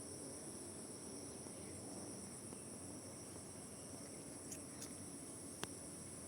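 A faint, steady, high-pitched chorus of insects trilling without a break. A few light clicks sound in the second half, the sharpest one about five and a half seconds in.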